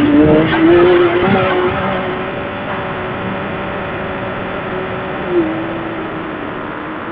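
Side-by-side UTV engine running under load as it climbs a sand dune, a steady drone over rushing noise. Loudest in the first second or so; about five seconds in there is a short bump and the engine note drops a little.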